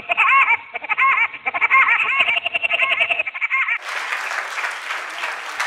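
Hens clucking in a quick run of short rising-and-falling calls; about four seconds in it cuts to applause.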